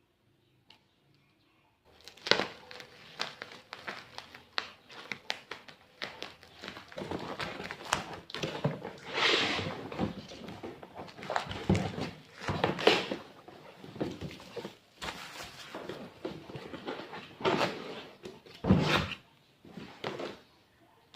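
Household handling sounds: a run of knocks, thunks and scrapes as things are picked up and set down, starting about two seconds in, with a few louder thunks near the middle and shortly before the end.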